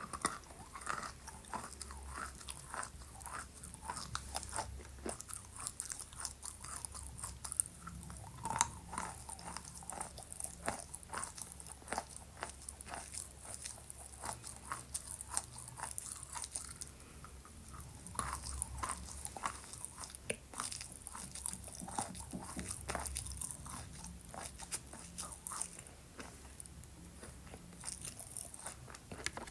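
Wet chalk being bitten and chewed close to the microphone: a continuous run of small, crisp crunches.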